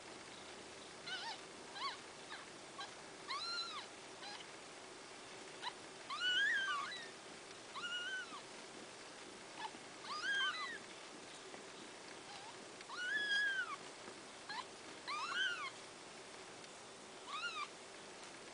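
Newborn kittens mewing while they nurse: about a dozen short, high cries, each rising then falling in pitch, at irregular intervals.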